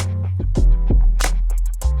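Background music with a steady beat: a deep bass line under sharp drum hits, about two a second.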